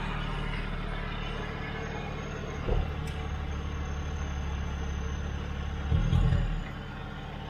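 Mitsubishi Pajero's engine running at low revs as the 4WD crawls up a rock step. There is a short knock a little under three seconds in, and a brief louder surge of engine noise about six seconds in.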